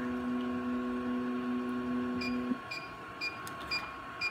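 Electronic beeper of a canine progesterone analyzer and incubator setup giving short, repeated beeps about twice a second, starting about halfway through. Before they start, a steady low hum runs and then stops.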